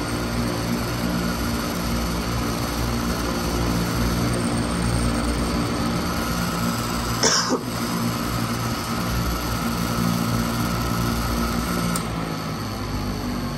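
Patton U2-1887 high velocity air circulator running steadily: electric fan motor hum with the even rush of air off the blades. A short cough comes about seven seconds in. Near the end there is a click, after which the fan runs a little quieter.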